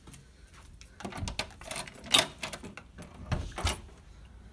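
Handling noise: irregular clicks, knocks and rustling as the camera phone and plush puppets are moved about by hand, starting about a second in.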